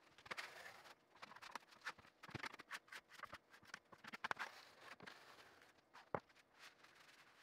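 Faint, irregular scrapes and light clicks of a wide metal spreading knife smoothing wet, tinted feather-finish concrete across a countertop, with a sharper tap about six seconds in.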